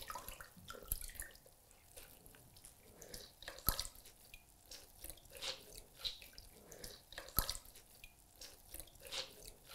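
Water dripping from soaked newspaper as it is squeezed by hand over a plastic bucket of water: irregular drips into the water, a few louder than the rest.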